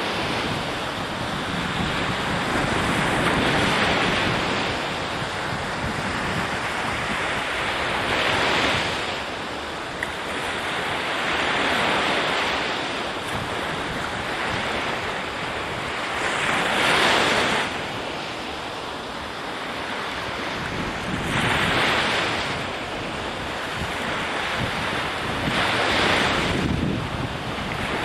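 Ocean surf: waves breaking and washing in, a steady rushing hiss that swells and fades about every four to five seconds.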